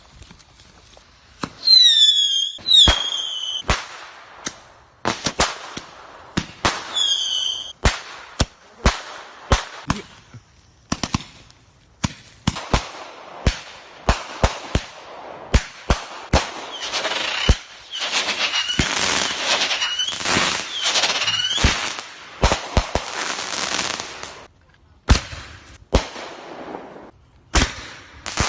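Backyard fireworks going off: a long run of sharp bangs and pops at irregular intervals. Short whistles that drop in pitch come about two seconds in and again near eight seconds. In the middle there is a stretch of several seconds of steady crackling hiss with more falling whistles.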